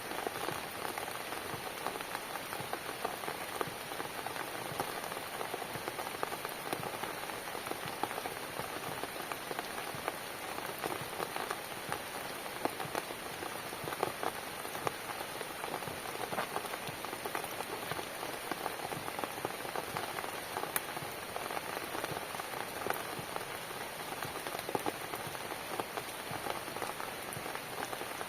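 Steady rain falling on a cabin: an even hiss dotted with many small, sharp drop ticks.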